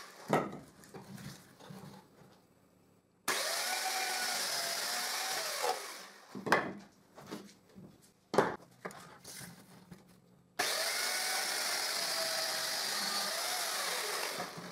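Electric chainsaw cutting through branches: it starts abruptly and runs for about three seconds, winds down, then starts again about ten seconds in and runs for about four seconds. A few sharp knocks sound between the two cuts.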